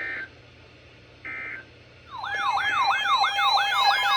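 Two short electronic beeps, then a synthesized siren-like alert tone that starts about two seconds in and sweeps rapidly up and down, about three times a second, at several pitches at once. This is the attention tone for a severe thunderstorm warning broadcast.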